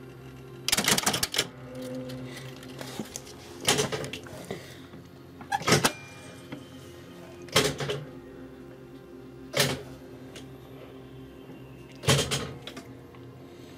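NSM Mint electromechanical slot machine running a game: six short bursts of clattering mechanical clicks from its reel and switching mechanism, about two seconds apart, over a steady hum. The machine is working normally again after a dead processor was replaced.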